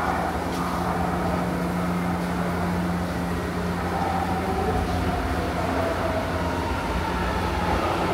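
Metro train running at the platform: a steady low electrical hum with a faint whine that drifts slightly lower in pitch in the second half.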